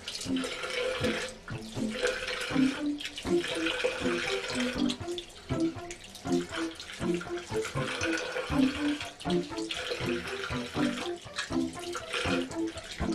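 Water running steadily, like a tap, with a tune of short low notes beneath it.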